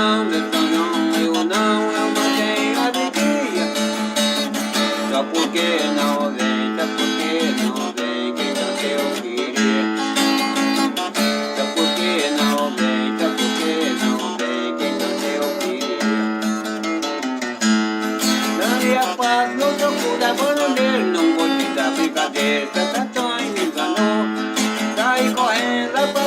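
Instrumental music led by plucked string instruments, a guitar-type strummed accompaniment under a melodic lead, playing continuously between sung verses.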